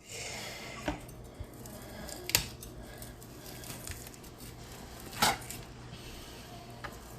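A few separate clinks and knocks of kitchen utensils and dishes, the two loudest about two and a half and five seconds in, over a low steady hum.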